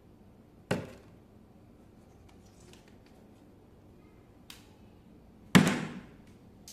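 Two sharp knocks about five seconds apart, each dying away quickly, the second louder, with a faint click between them.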